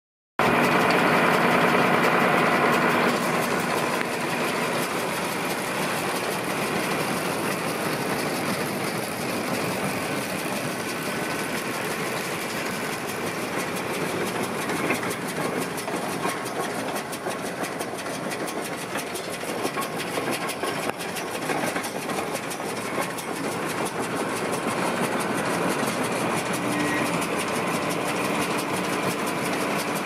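Tractor engine running steadily with the hitched New Holland 648 round baler's machinery turning over. It is a little louder for the first three seconds, then settles to an even drone.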